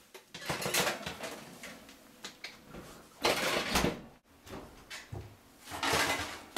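Oven door of an electric range being opened and metal baking sheets pulled out over the oven racks: several separate knocks and scrapes, the loudest about three seconds in.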